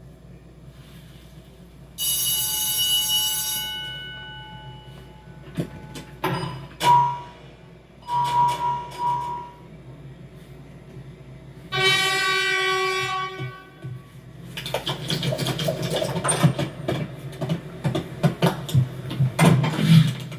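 Animated-film sound effects: a loud, sustained horn blast about 2 seconds in, then a few sharp clanks and a short tone, and a second horn blast near the middle. From about two-thirds of the way through there is dense, continuous mechanical clatter and knocking.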